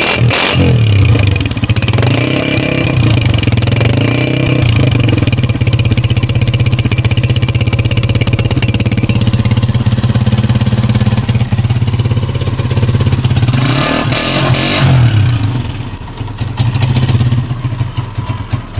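Honda CG 125 motorcycle's single-cylinder four-stroke engine running steadily through its exhaust, revved briefly around fourteen seconds in, then quieter for the last few seconds.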